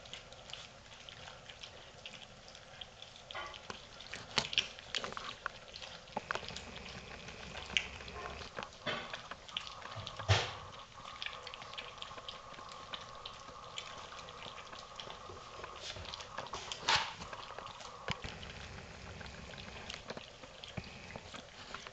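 Puppies eating softened kibble from a stainless steel feeding pan: wet lapping and chewing with irregular clicks and clinks of kibble and paws against the metal. The loudest knocks come about ten seconds in and again near seventeen seconds.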